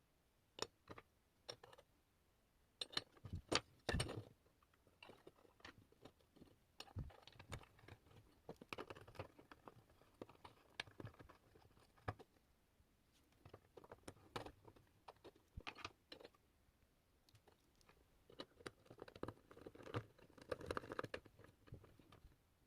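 Irregular small clicks and taps with some rustling, as of small parts being handled on a work surface; the loudest few come together about three to four seconds in.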